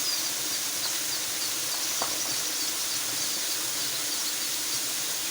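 A steady hiss of rushing water, with a small bird giving short, high, falling chirps about twice a second.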